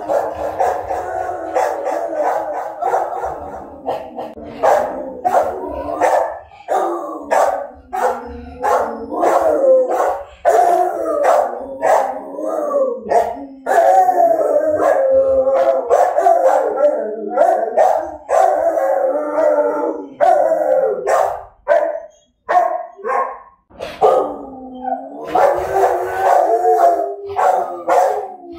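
Rottweilers howling together in long, wavering, overlapping howls, broken by short sharp barks and yips. The howling drops out briefly about two-thirds of the way through, then starts again.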